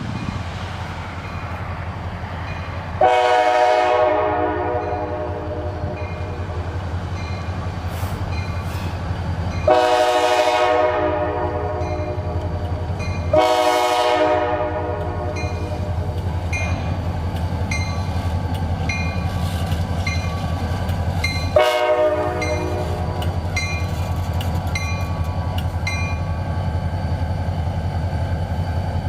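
Approaching EMD diesel freight locomotives, their engines running with a steady low rumble, the lead unit sounding its air horn in four blasts, the first three long and the last one short. A regular high ticking runs under the second half.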